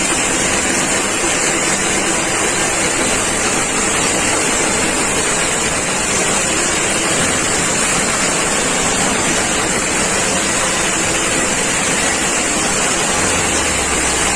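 Multi-purpose forage chopper machine running steadily, a loud, even, noisy whir with no change in pitch.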